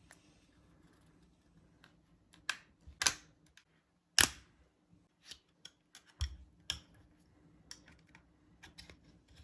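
Scattered sharp clicks and taps of small tools and plastic parts handled on a phone being opened up for repair, loudest about four seconds in, with a duller knock a couple of seconds later.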